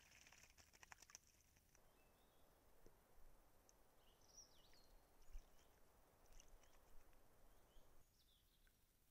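Eurasian blackbird bathing in a shallow puddle, a quick run of wing-flicking splashes for the first second and a half. Then a steady faint hiss with scattered high bird chirps and short falling calls.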